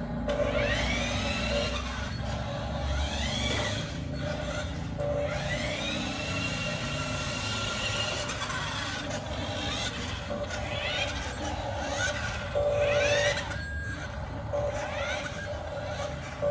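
Radio-controlled 1:20-scale flatbed truck driving on a tile floor: its electric drive motor and gears whine, rising in pitch each time it speeds up, over a low running rumble. A steady beep-like tone comes in and out several times.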